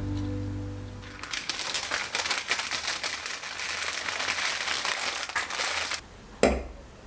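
Soft music fading out, then several seconds of dense crinkling and rustling. Near the end comes a single sharp knock as a glass vase is set down on a marble tabletop.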